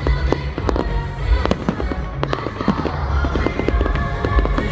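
Fireworks display: rapid bangs and crackles, several a second, over music with a deep low end.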